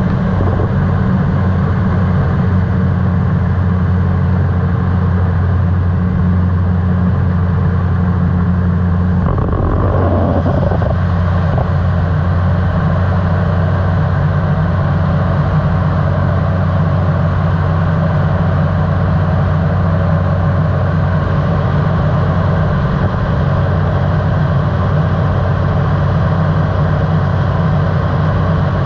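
Flex-wing microlight trike's engine and propeller droning steadily in flight, with a brief unsteady patch about a third of the way in.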